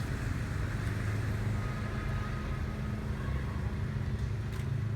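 A vehicle engine running steadily: a continuous low drone with no distinct events.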